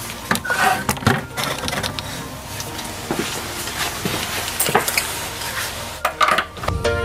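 Irregular metal clinks and knocks of a socket wrench being handled over the open top of an electric water heater, with a few sharper knocks about a second in and again near the end, as it goes onto the heating element's flange nuts to unscrew them.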